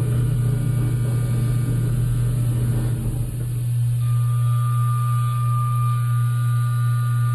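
CNC vertical machining center spindle turning a 1/2-inch Kennametal KOR 5 end mill at 8000 RPM, taking a light finishing contour pass with flood coolant spraying: a steady hum with the rush of cutting and coolant. About four seconds in, a steady higher tone joins as the cut goes on.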